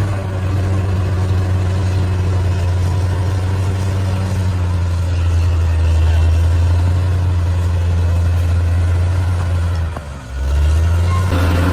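Large bulldozer's diesel engine running steadily with a deep, even drone. Its level drops briefly about ten seconds in and then comes back up.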